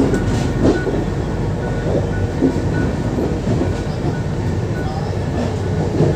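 Navjeevan Express passenger train running at speed, heard from inside the coach: a steady rumble with a few irregular knocks from the wheels and carriage.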